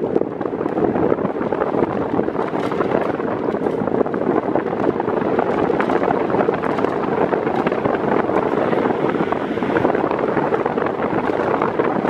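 Britânia B400 Turbo 40 cm fan running at top speed, its airflow rushing steadily into the microphone as wind noise.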